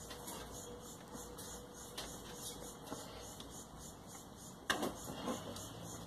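Faint handling sounds of wires and a plastic motor housing as a spade terminal is worked off a vacuum cleaner motor's lead, with small clicks and one sharper click about three-quarters of the way through.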